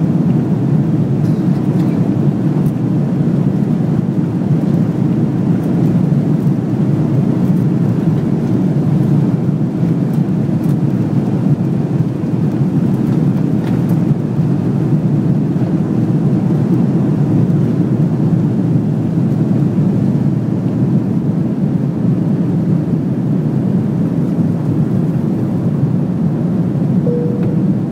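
Steady, loud cabin roar of an Airbus A330-300's jet engines and the airflow, heard from inside the passenger cabin. A short faint tone sounds near the end.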